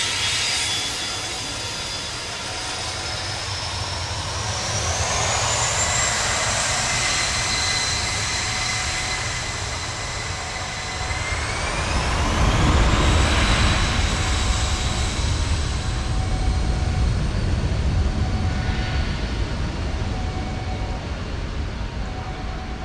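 Jet aircraft engines spooling up for takeoff: a high turbine whine that rises in pitch about five seconds in and again about eleven seconds in, over a low rumble that grows loudest after the second rise.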